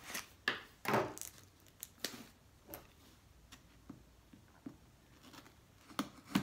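Light handling noises: scattered clicks and taps with a brief rustle about a second in, as a small cardboard box and its contents are worked open by hand, with the sharpest clicks near the end.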